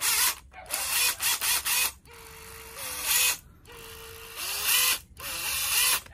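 Cordless impact driver run unloaded in about five short trigger pulls. Each time the motor whirs up in pitch, sometimes holds a steady speed for a moment, then winds down. It is being shown to run in both forward and reverse.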